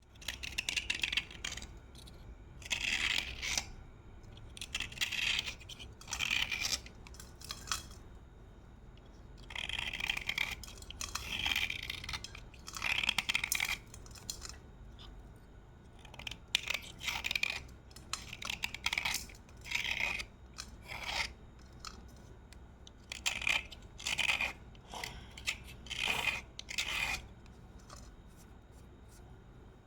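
Slate pencils being bitten and chewed, a series of short, crisp crunches in irregular clusters with short pauses between them.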